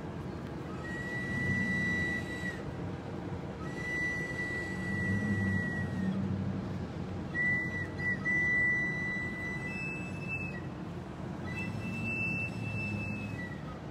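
An end-blown flute is played in slow, long held notes, each one to two seconds long, with some breath noise. The first three notes sit at one pitch and the last two are a step higher.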